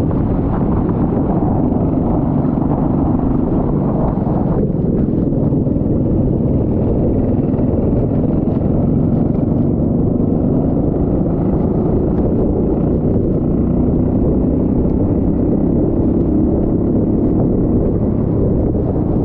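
Kart engine running steadily at speed, a dull low drone mixed with wind noise on the microphone. The sound thins out slightly about four seconds in.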